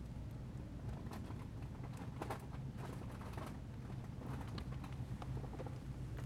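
A steady low electrical-sounding hum with scattered faint clicks and rustles of small movements close to the microphone, a cluster of them between about two and four seconds in.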